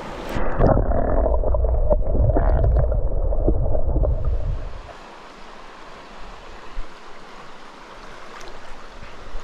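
Muffled underwater sloshing and gurgling with the microphone submerged in a small stream for about four seconds. Once the microphone is back above the surface, the steady rush of the stream's shallow running water takes over.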